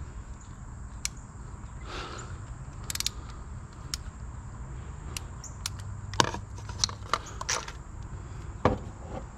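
Scattered clicks and light metal taps of hand tools — spark plug socket, extension and ratchet — being worked in an engine bay, with a quick run of clicks about three seconds in, over a low steady hum.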